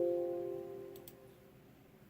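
Computer alert chime: a short chord of several clear tones struck at once, fading away over about a second and a half. A couple of faint mouse clicks come about a second in.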